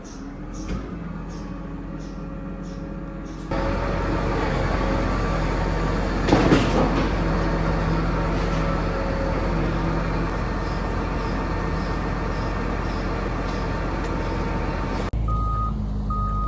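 Tractor diesel engine running steadily, with a sharp knock about six seconds in. Near the end a repeating short electronic beep starts over the engine.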